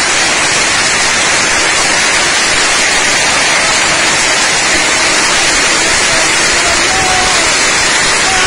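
Heavy storm rain pouring down hard in a steady, dense hiss.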